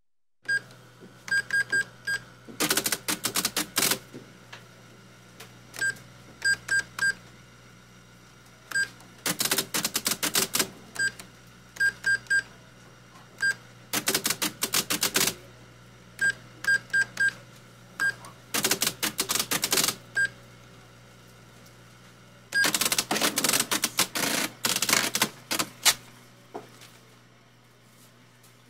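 Electronic cash register in use: keys pressed with short, high beeps, singly and in quick runs, alternating with five bursts of rapid mechanical clicking and rattling, the longest about three seconds long near the end.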